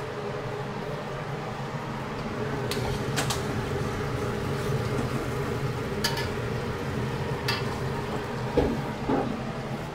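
Broth boiling in a wok on a gas stove: a steady bubbling hiss with a low hum under it, and a few light clicks and clinks of utensils.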